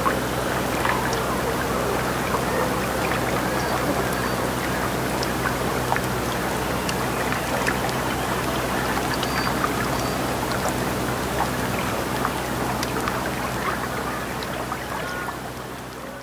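Steady sound of moving water, an even wash with scattered small ticks and a low steady hum underneath. It fades out near the end.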